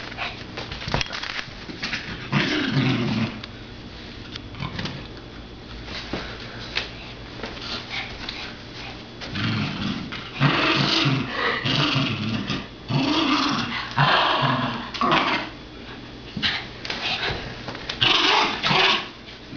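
Small terrier growling in play in repeated rough bursts, a few early on and then more often through the second half, while it worries at a red rubber ring toy.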